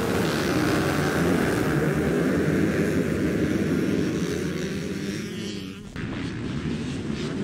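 A pack of motocross bikes accelerating hard off the start gate, many engines at high revs together. The sound drops away suddenly just before six seconds in, then the engines carry on at a lower level.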